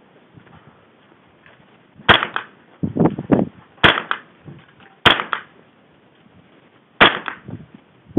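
Ruger 10/22 semi-automatic .22 LR rifle firing four single shots about one to two seconds apart, each a sharp crack with a short echo.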